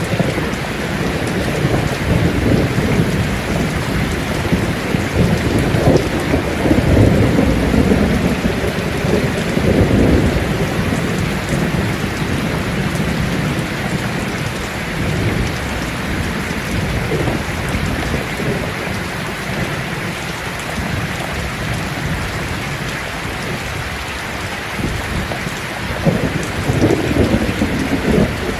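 Steady rain falling on leaves. Low rumbles of thunder swell up several seconds in and again near the end.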